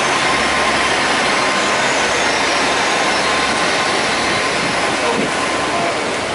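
Great Western Railway Class 800 train running past on the line: a loud, steady rush of engine and wheel noise with a faint whine, easing slightly near the end.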